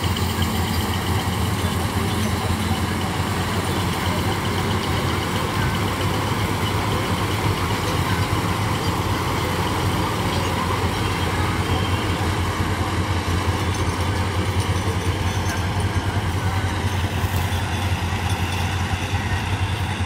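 Combine harvester running steadily while cutting and threshing wheat: a loud, even engine drone with dense machinery noise over it.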